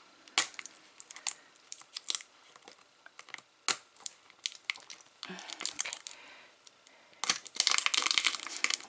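Tape sealing a jewelry jar being picked at and peeled off, crinkling and tearing, with scattered small clicks from handling and a dense spell of crinkling near the end.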